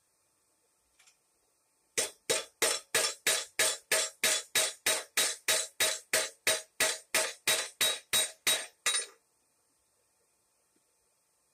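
Hand hammer forging red-hot steel on an anvil: a steady run of about twenty ringing blows, about three a second, starting about two seconds in and stopping about nine seconds in.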